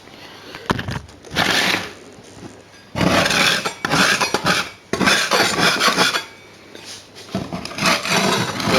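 Objects being handled and shifted: clattering, knocking and rubbing in several irregular bursts with short quiet gaps.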